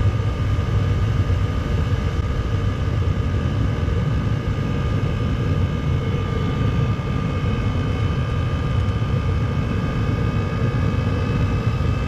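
Chinese diesel heater burning waste oil through a preheated fuel line, running steadily: a low rumble with a thin, steady whine over it.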